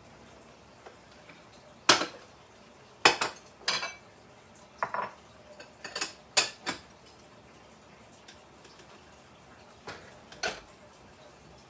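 Dishes clinking and clattering as a plate is taken out of a kitchen cupboard: about nine separate sharp knocks, most in the first seven seconds and two more near the end.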